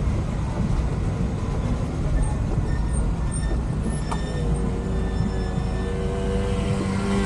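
Truck engine running at low speed, heard from inside the cab, with road noise; a steady engine tone comes up in the mix about four seconds in.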